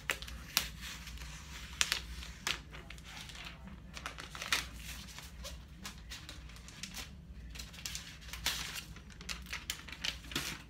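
Translucent protective wrap crinkling and rustling as it is handled and peeled off a new MacBook Air, with irregular sharp crackles and rustles.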